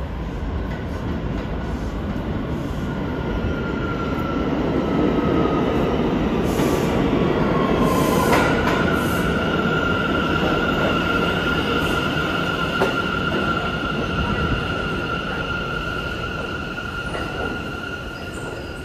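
New York City subway train running on steel rails, a heavy rumble that builds to its loudest about eight seconds in and then slowly eases. A high, steady wheel squeal sets in about eight seconds in and holds almost to the end.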